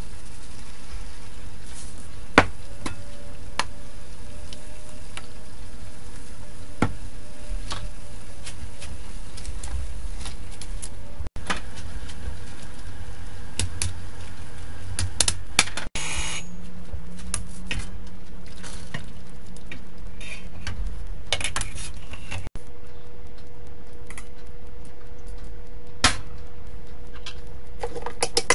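Water boiling in a stainless-steel pot over a steady rushing background, with scattered clinks of a metal utensil against the pot as Chinese broccoli is stirred. Near the end come clicks of a utensil in a steel mixing bowl as sliced beef is mixed.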